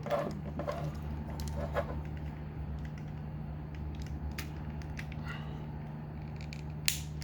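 Light clicks and taps of the plastic arm and hand parts of a Transformers Masterpiece MP-30 Ratchet figure being swivelled and handled, with one sharper click near the end, over a steady low hum.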